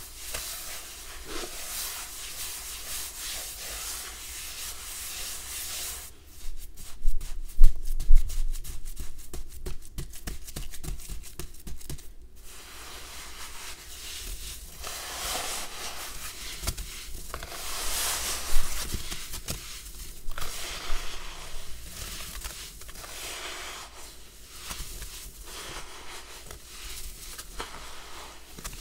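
Hands kneading and squeezing damp red sand in a plastic bowl: gritty rubbing and crumbling, with a stretch of rapid crackles and dull thumps about a quarter of the way in.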